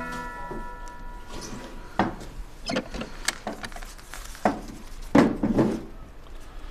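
A wooden counter drawer being handled, with several separate knocks and scrapes, as paper banknotes are taken out. Background music dies away in the first second or so.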